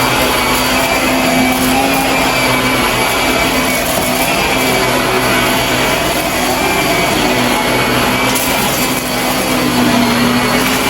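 Shark vacuum cleaner running steadily, its motor hum wavering slightly in pitch over a constant rush of suction.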